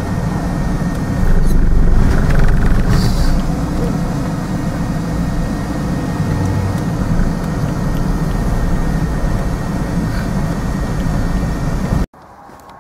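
Car driving, heard from inside the cabin: a steady low engine and road rumble, louder for a stretch about a second in. It cuts off abruptly near the end.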